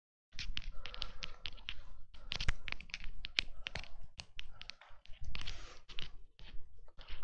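A whiteboard being wiped with a handheld eraser: a quick run of scrubbing strokes with knocks and taps against the board, cutting off near the end.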